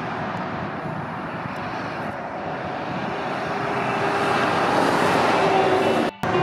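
Motorway traffic: the tyre and engine noise of a heavy truck and a car approaching and passing, growing louder toward the middle. The sound drops out briefly near the end.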